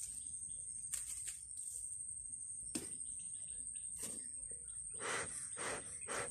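Bee smoker being handled with a few sharp knocks, then its bellows puffed in quick succession, four short whooshes about half a second apart in the second half. A steady high insect-like whine runs underneath.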